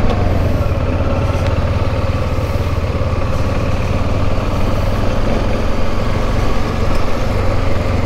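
Dual-sport motorcycle engine running steadily while riding along a dirt track, heard close up from the rider's helmet camera.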